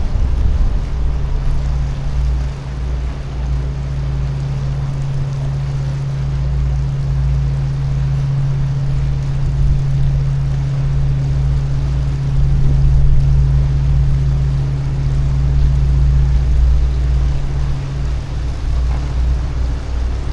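Great Lakes freighter's diesel engines running with a steady low hum, under gusty wind rumbling on the microphone.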